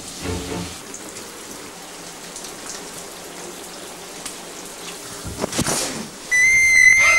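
Shower running, a steady hiss of water spray, with a brief loud swish about five and a half seconds in. Near the end a shrill, steady high-pitched screech cuts in abruptly.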